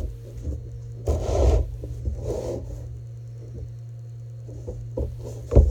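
Handling of a hand-held ultrasonic welder gun on a woven plastic egg belt as the tip is moved and set down for the next spot weld: two short scraping rubs about a second apart over a steady low hum, with a knock near the end.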